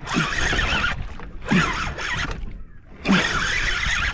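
Fishing reel being wound in short bursts, about one every second and a half, as a hooked fish is pumped up from the bottom.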